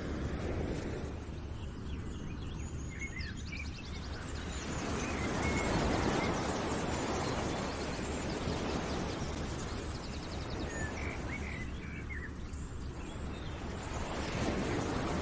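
Outdoor nature ambience: small birds chirping and trilling now and then over a steady rushing background noise, with a group of chirps near the start and again near the end.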